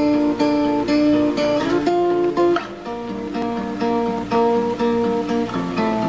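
Background music: a guitar playing a steady run of plucked notes.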